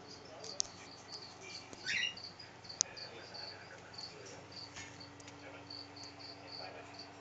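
A cricket chirping steadily, short high chirps at roughly three a second. A few sharp clicks come through, the sharpest nearly three seconds in.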